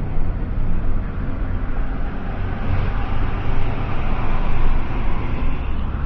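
Steady road noise of a pilot car driving at highway speed: tyre noise over a low engine hum.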